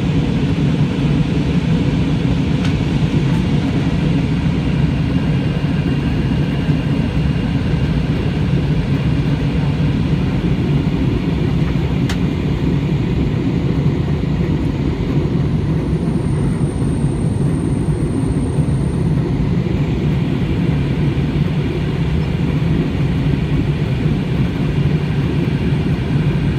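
Steady cabin noise of a jet airliner in flight: a constant low rumble and rush of the engines and airflow heard from inside the passenger cabin.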